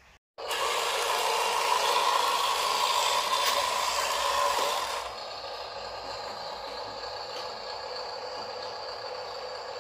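Electric drive motor and gears of a Huina RC dump truck whirring as it drives. It runs louder for the first few seconds, then settles to a quieter, steady whir.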